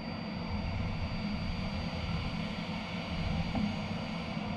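Steady drone of machine-shop machinery running, a low hum with a faint thin high whine held throughout.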